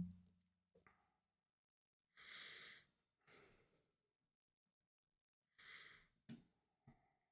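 A man breathing out audibly into a close microphone: a brief voiced sound right at the start, then three soft, breathy exhales about half a second each, with near silence between.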